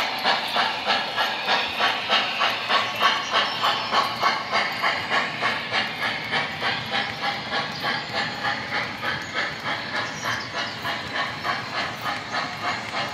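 Steam-locomotive chuffing from the onboard sound system of an MTH O scale model of East Broad Top 0-6-0 #6, a steady beat of about three hissing chuffs a second as the model runs. The chuffs grow slightly fainter after about six seconds.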